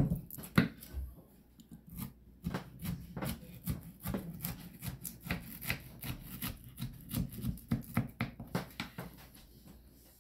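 A knife cutting through a pan of crisp rice cereal treats: an irregular run of crunches and clicks as the blade presses through the crisped rice. The cutting stops about a second before the end.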